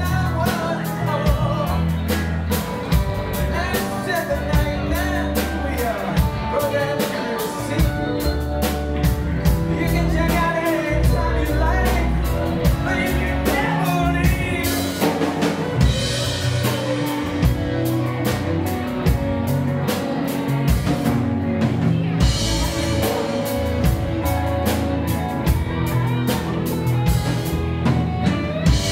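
Live rock band playing: electric guitars, electric bass and drum kit, with a man singing lead. Cymbal crashes swell up about halfway through and again a few seconds later.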